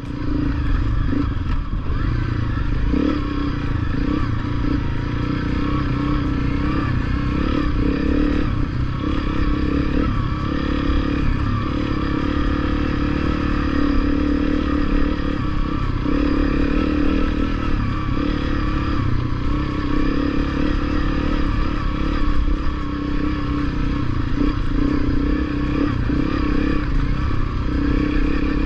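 Honda CRF250L dirt bike's single-cylinder four-stroke engine running steadily while the bike is ridden along a rough trail.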